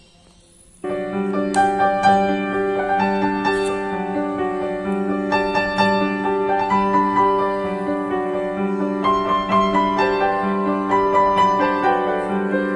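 Background music, a melody over held chords, starting abruptly about a second in.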